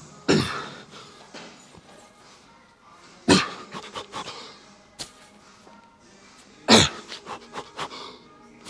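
A man's sharp, forceful exhalations, three of them about three and a half seconds apart, each followed by a few smaller breaths: the effort of heaving each rep of a heavy preacher curl.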